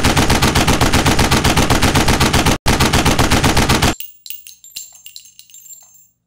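Rapid automatic gunfire in one long burst, broken once for an instant a little after halfway, that stops about two-thirds of the way in. A scatter of light metallic clinks and rings follows.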